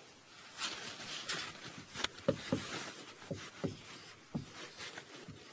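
Hand-drawing strokes: a dozen or so short scratches and little squeaks as circuit diagrams are sketched.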